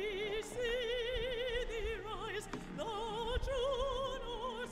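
Opera music: a singing voice holding notes with a wide, wavering vibrato, moving to a new pitch every second or so.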